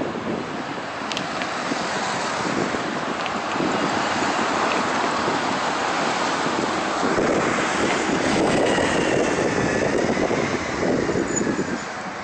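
Wind buffeting the microphone in uneven gusts over the steady noise of road traffic.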